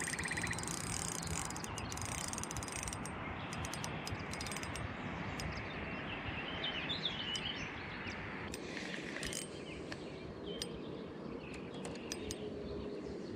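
Steady outdoor background noise with faint bird chirps around the middle and a few scattered light clicks.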